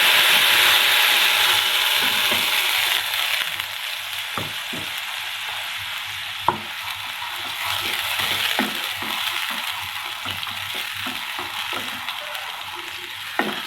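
Wet onion, green chilli and tomato paste sizzling in hot mustard oil with cumin seeds, loud for the first three seconds or so and then easing off as it is stirred, with the spoon clicking against the pan now and then.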